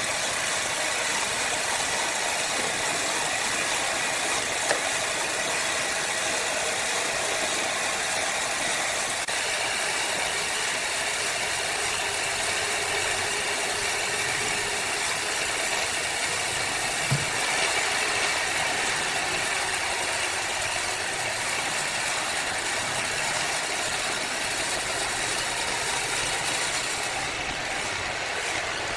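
Sawmill machinery running steadily, an even high, hissing machine noise without pauses, with a couple of faint knocks.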